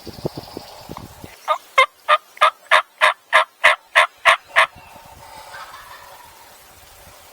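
Turkey yelping: a run of about eleven evenly spaced yelps, about three a second, lasting some three seconds. A few faint low knocks come just before.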